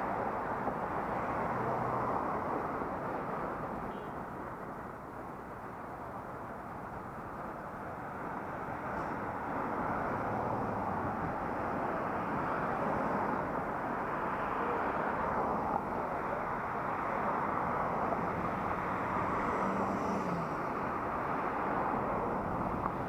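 Steady rush of wind and road noise on a helmet-mounted action camera while riding, easing slightly for a few seconds early in the stretch before building again.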